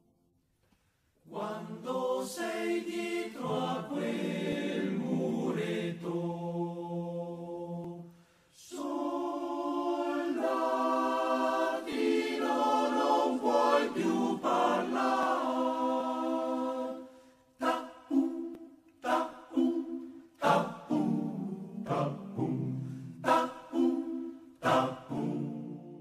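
Choir singing a slow a cappella song, with a short break about a second in and another around eight seconds; from about seventeen seconds the singing comes in short separate phrases.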